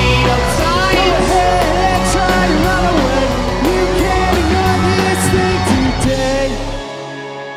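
Rock band playing live: drums, bass and a lead melody bending up and down in pitch. Near the end the drums and bass stop, and a held chord rings on as the song closes.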